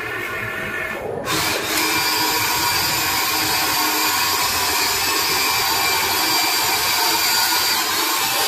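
Huina 1592 RC toy excavator's electric motors whining steadily as the boom and arm move, getting louder about a second in.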